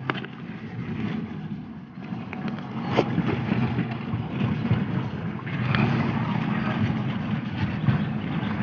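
A steady engine-like hum running throughout, with a few brief clicks over it.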